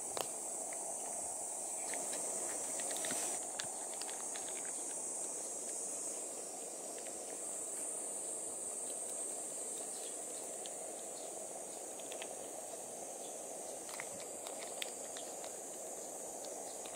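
Steady high-pitched insect chorus, with a few light taps and scrapes of a hand grater against a block of Parmigiano-Reggiano and a steel cup.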